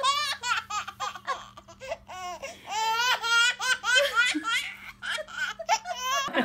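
A baby laughing in a run of high-pitched, gleeful bursts, each one rising and falling in pitch.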